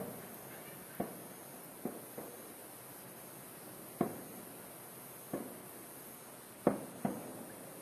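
Aerial firework shells bursting at a distance: about eight sharp bangs at irregular intervals, each with a short echoing tail, over a steady high hiss.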